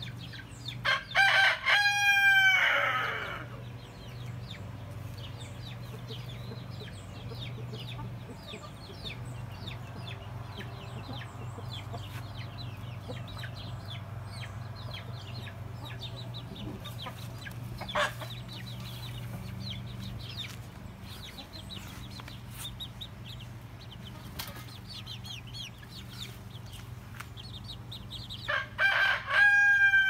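Young bantam rooster crowing twice, about a second in and again near the end: a cockerel still learning to crow. Soft clucking from the flock in between.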